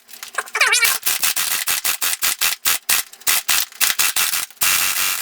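Airsoft electric gun (Crosman Pulsar 72) firing full-auto on an 11.1 V LiPo battery, an uneven stream of rapid shots with gaps and stutters: the cheap magazine cannot feed BBs fast enough for the gearbox, and the overworked motor is overheating.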